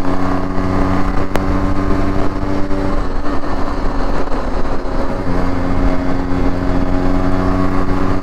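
Yamaha RX135's two-stroke single-cylinder engine running steadily at highway cruising speed, about 80 km/h. The engine note drops back for about two seconds near the middle, then comes back.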